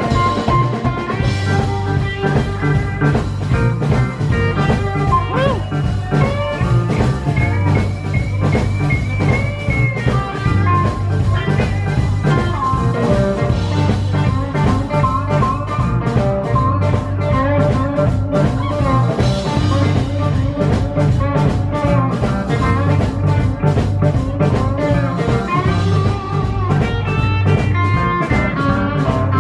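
Live country band playing a honky-tonk song: pedal steel guitar and electric guitar over upright bass and drum kit. The beat is steady and the notes slide.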